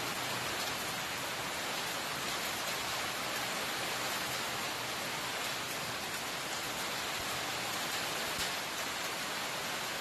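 Heavy rain pouring in a Kalbaishakhi (nor'wester) storm: a dense, steady, even hiss.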